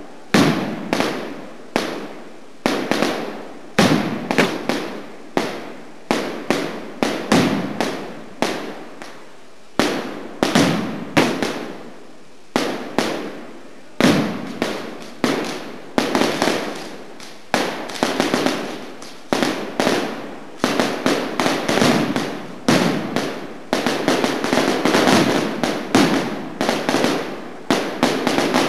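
Mascletà firecrackers going off in rapid volleys of sharp bangs, coming thicker and almost continuous from about two-thirds of the way in.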